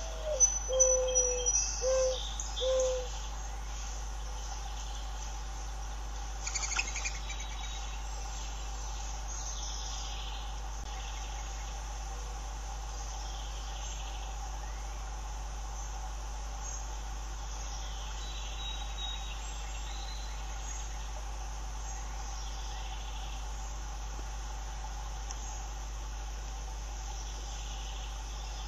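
Steady drone of crickets and other insects over a constant low hum. Near the start a bird gives a run of five or six short, low cooing notes, and a brief crackle comes about seven seconds in.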